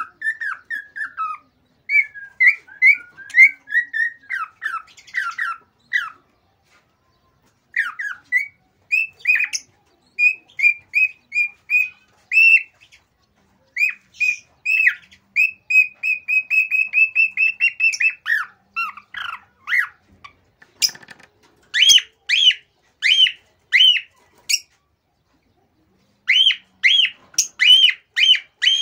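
Male cockatiel's excited breeding song: quick runs of chirps and whistled notes in bouts with two short pauses, turning near the end into a string of repeated rise-and-fall calls about two a second.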